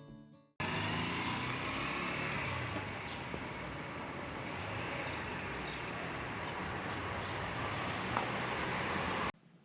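A steady rushing outdoor noise with no distinct events, starting and stopping abruptly.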